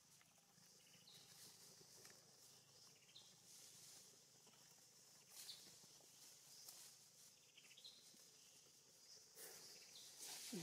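Near silence: faint outdoor background hiss, with a few faint, short high chirps spaced a couple of seconds apart.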